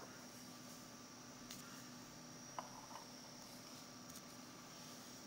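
Near silence with a faint steady high whine, broken by a few soft clicks in the middle as AA batteries are set down on the plastic platform of a kitchen scale.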